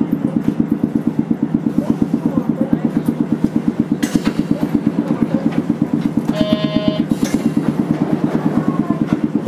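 Old De7070 tram standing at a stop with its air compressor running, a steady, quick pulsing of about ten beats a second. About four seconds in a brief hiss comes over it, and around six and a half seconds a short electronic tone sounds.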